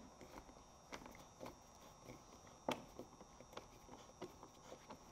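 Faint, irregular clicks and ticks of a hand screwdriver with a T30 Torx bit turning a screw out of a car door trim panel; the clearest click comes a little under three seconds in.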